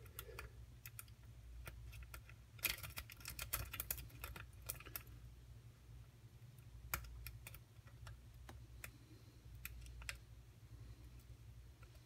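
Faint, irregular clicking of a lock pick and tension wrench in a pin-tumbler lock cylinder during single-pin picking, as the pick probes and lifts the pins, with a flurry of clicks about three to five seconds in.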